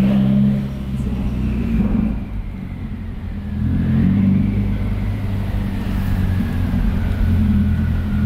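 Subaru WRX's turbocharged flat-four engine through a Tomei Expreme titanium single-exit exhaust, running under light throttle at low speed, heard from inside the cabin. The note drops away about two seconds in and picks up again about a second and a half later.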